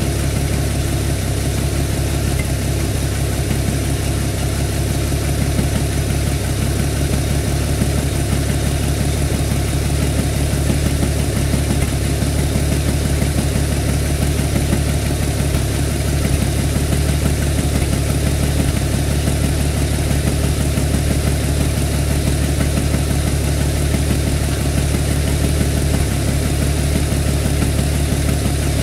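An engine running steadily at an even idle, with no change in speed.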